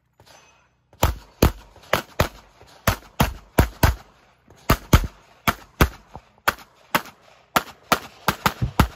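Pistol shots in rapid strings, about two dozen in all, starting about a second in. They come in quick pairs and runs with short breaks between groups.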